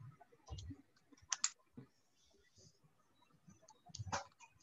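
Scattered soft clicks of keys being pressed, a few at a time with pauses between, as a calculation is keyed in.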